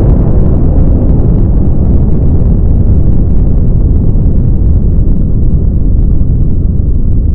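Volcanic eruption: a loud, steady, deep rumble and roar of an explosive eruption throwing out glowing ejecta.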